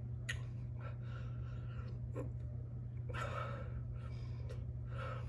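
A man's heavy breaths and sighs, about five in all, over a steady low hum.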